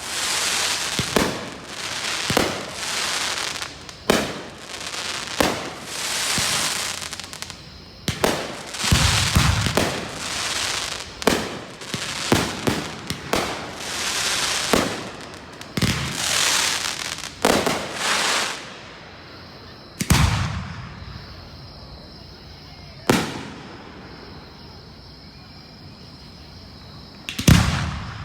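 Fireworks display: a rapid run of aerial shell bursts, each trailing off in crackle, for about the first eighteen seconds. Then three single bangs come a few seconds apart.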